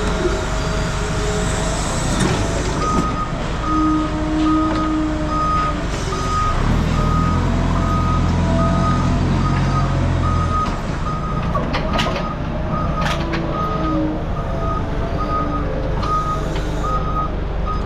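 A vehicle's reverse alarm beeping steadily at a single pitch while its engine runs; the engine gets louder for a few seconds in the middle, and a couple of sharp knocks come near the end.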